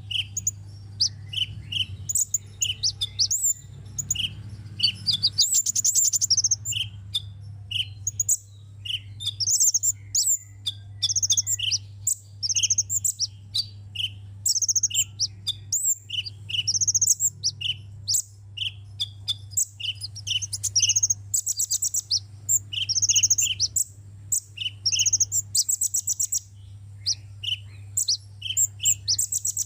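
Sunbird song: rapid, high chirps and twittering phrases with short buzzy trills, repeated without pause, over a steady low hum.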